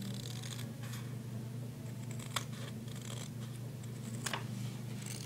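Scissors snipping through layered duct tape: a few short, sharp snips, the clearest about two seconds in and near the end, over a steady low hum.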